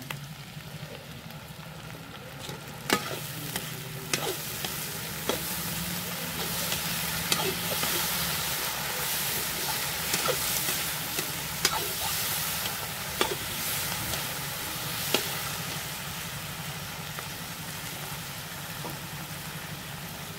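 Onions and capsicum sizzling in a hot iron kadhai just after soy sauce is poured in, the sizzle swelling a couple of seconds in. A metal perforated skimmer stirs and scrapes the vegetables, with sharp clinks against the iron pan every second or two through the middle.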